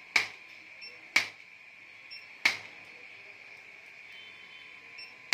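Spring-loaded chiropractic impulse adjusting gun firing: four sharp clicks, the first three about a second apart and the last after a pause of nearly three seconds. Each click has a softer tick just before it.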